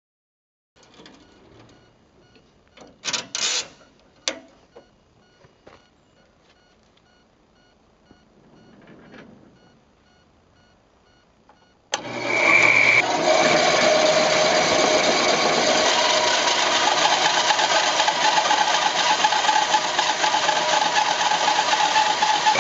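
A few scattered knocks and clicks, then about twelve seconds in a machine starts abruptly and runs loudly and steadily, with a steady whine over a rough roar.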